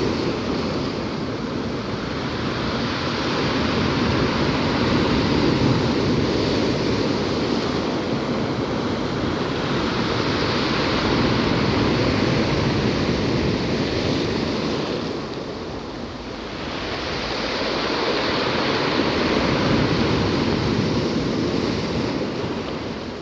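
Black Sea surf: waves breaking and washing over the shore as a continuous rush that swells and eases, dipping briefly about two-thirds of the way through.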